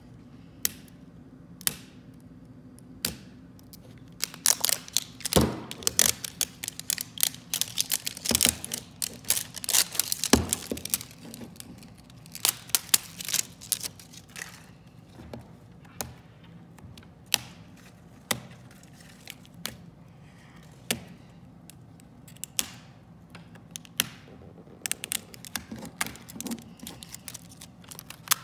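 Crinkling, crackling and tearing of the plastic wrap and sticker strips being peeled off an L.O.L. Surprise ball, with sharp clicks of fingers on the plastic. Busiest in the first half, then sparser clicks.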